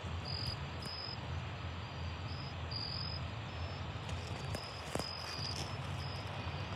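Crickets chirping, short high chirps every half second or so, over a steady low rumble. A faint click about five seconds in.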